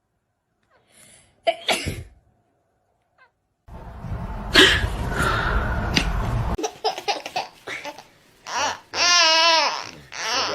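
A person laughing, with a stretch of low rumbling noise before it and a long, wavering, pitched laugh near the end.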